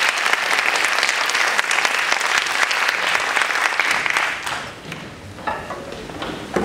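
Audience applauding, a dense patter of clapping that dies away about four and a half seconds in. Quieter shuffling and a couple of sharp knocks follow as the orchestra players settle into their seats.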